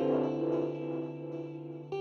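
Instrumental background music: held, ringing notes, with a new chord struck at the start and another just before the end.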